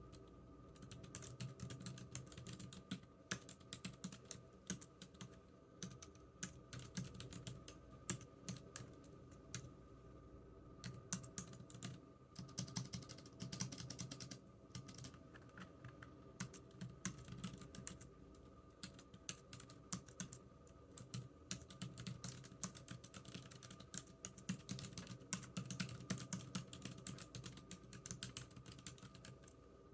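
Typing on a computer keyboard: quick runs of key clicks broken by short pauses every few seconds, over a faint steady hum.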